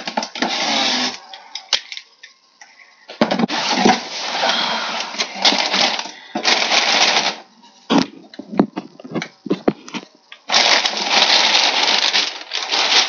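Cardboard box flaps being opened and crumpled packing paper rustling and crinkling in several loud stretches as it is handled and pulled out of the box. A few sharp knocks and clicks come in between.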